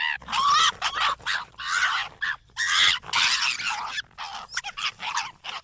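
Fox calling: a quick, irregular series of short, high-pitched yelps.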